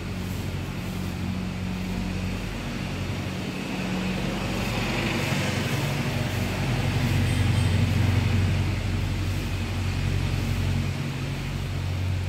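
Low, steady hum of a motor vehicle's engine running nearby. It swells to its loudest about seven to eight seconds in, then eases off.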